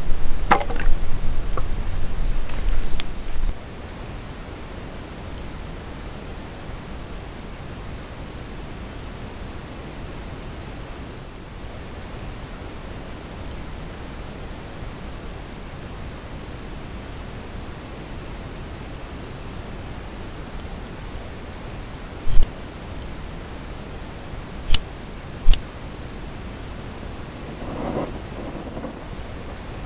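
A steady, unbroken high-pitched insect trill, cricket-like. There is a louder low rumble for the first three seconds or so, and a few sharp clicks near the end.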